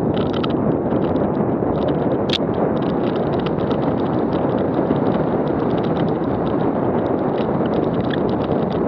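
Wind rushing over a helmet-camera microphone and tyres rumbling over a rocky dirt trail as a downhill mountain bike descends at speed. A constant patter of rattling clicks from gravel and the bike runs under it, with one sharper crack about two seconds in.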